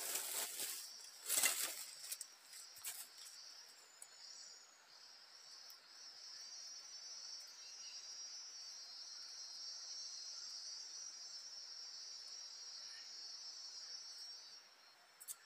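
Rustling and crackling in the first two seconds, with one sharper, louder crackle about a second and a half in. Then an insect's high, steady trill comes in and runs for about eight seconds before stopping abruptly near the end.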